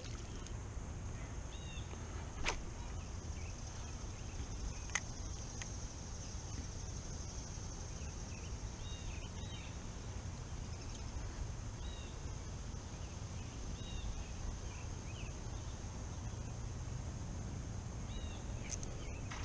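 Quiet outdoor ambience: short faint bird chirps every couple of seconds over a steady high-pitched hum and a low rumble, with a couple of faint clicks near the start.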